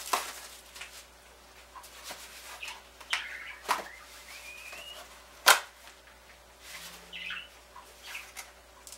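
Small cardboard box being cut and pried open with a knife: scattered scrapes, rustles and clicks of cardboard, with one sharp snap a little past halfway that is the loudest sound.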